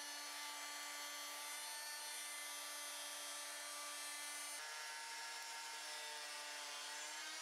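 Electric router with a 1/4-inch slot-cutting bit running steadily as it cuts a slot along the edge of a 2x10 board, a steady whine. About halfway through the tone shifts, and its pitch rises slightly near the end.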